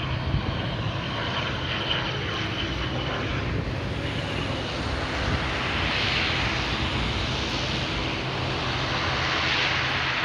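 Boeing 747-400's four turbofan engines running steadily. A high whine sits over the jet noise for the first three seconds, and the hiss swells twice, about six seconds in and near the end.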